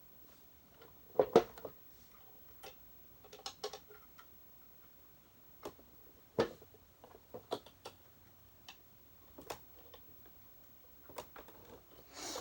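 Irregular clicks and knocks of parts being handled and fitted as the motor goes back into a Hoover U6436-900 upright vacuum, with the loudest knocks about a second in and near the middle.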